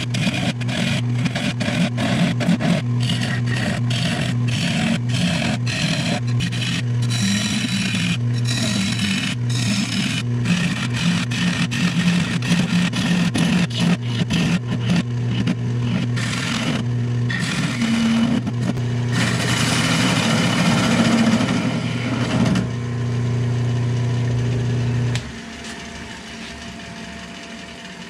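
Wood lathe running with a steady motor hum while a bowl gouge cuts a spinning juniper bowl filled with epoxy: a rough scraping full of quick ticks. The cutting stops a few seconds before the end, and soon after the hum drops away, leaving a quieter whir.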